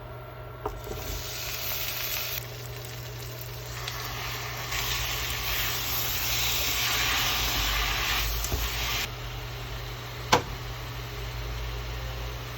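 Food sizzling in a frying pan: a steady hiss that grows louder a few seconds in and then stops suddenly. A single sharp click follows near the end.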